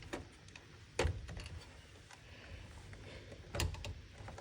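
Three sharp knocks and clicks of parts and tools being handled while working on a dishwasher's water fill valve, the loudest about a second in, over a faint low steady hum.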